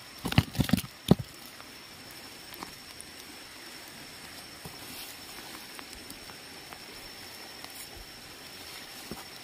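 A quick run of knocks and rattles on a clear plastic box holding freshly caught live river fish, lasting about a second near the start, then only a low steady hiss with a faint high steady whine.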